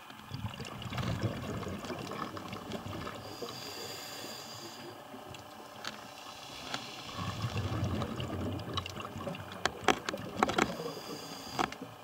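Underwater sound of a scuba diver breathing through a regulator: a bubbling rumble of exhaled air, a short hiss of inhalation around the middle, then another bubbling exhalation. Several sharp clicks come near the end.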